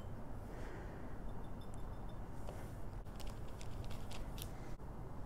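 A low steady hum with light handling sounds of a wet paintbrush being worked on an ink pad and paper, including a run of faint ticks and taps about three seconds in.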